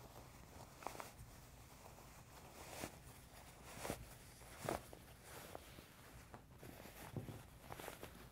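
Faint rustling of fabric as a rolled garment is pulled out through its sewn facing and handled on a tabletop, with several brief rustles and brushes, the loudest a little under five seconds in.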